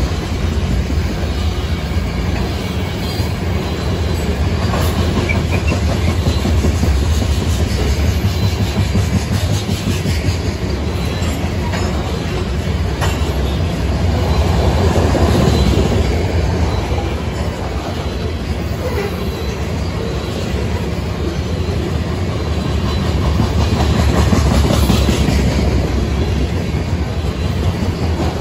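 Freight train of steel covered hopper cars rolling past: a continuous rumble of steel wheels on rail with clickety-clack, swelling somewhat in the middle and again near the end.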